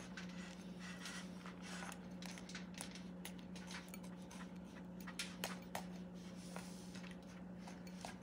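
Knife tip poking into a raw turkey breast in a foil roasting pan: faint, scattered soft ticks, a few in each second or two, over a steady low hum.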